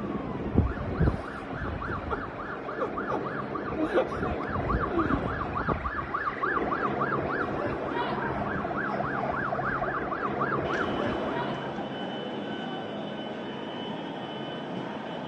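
Emergency vehicle siren in a fast yelp, wailing up and down about three to four times a second over street noise, with a few sharp knocks near the start; the siren stops about eleven seconds in.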